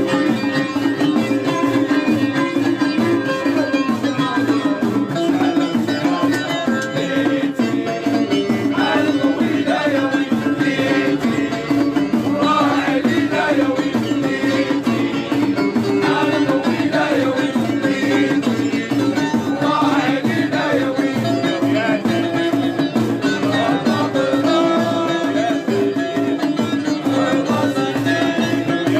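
Traditional folk music with hand drums and a plucked string instrument over a steady drone. A wavering melody line, sung or played, rises and falls through the middle.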